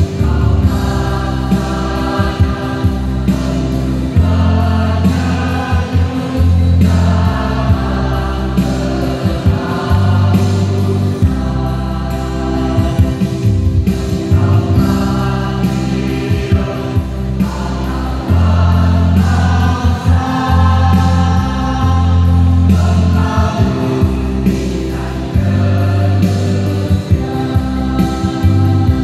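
Choir singing in several parts: held notes in phrases of a second or two over a steady low accompaniment.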